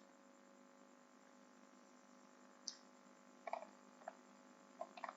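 Near silence with a steady low electrical hum, and a few faint short clicks starting about halfway through, several close together near the end.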